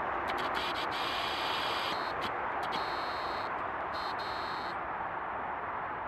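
Steady even hiss of background noise with no clear bird calls. A thinner, higher hiss cuts in and out several times during the first few seconds.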